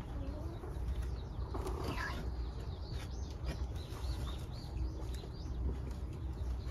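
Silkie hens sitting on their eggs give short, high chirping calls and soft clucks as a hand reaches under them, over a low rumble.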